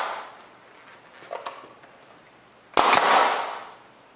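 A staple gun firing a staple into plywood: one sharp shot about three seconds in, followed by a short hiss, with a few light clicks before it.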